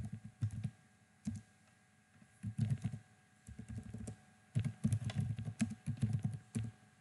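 Computer keyboard typing in short bursts of keystrokes with brief pauses between, the longest run coming in the second half.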